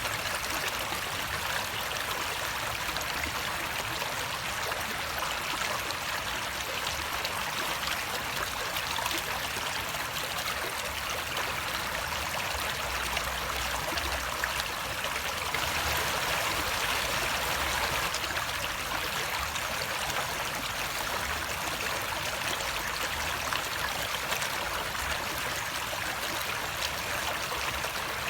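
Running water flowing steadily in a continuous rushing trickle. It swells slightly for a few seconds around the middle.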